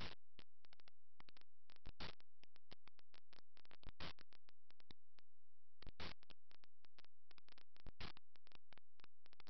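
Background music with a steady beat and guitar, a strong accent repeating about every two seconds.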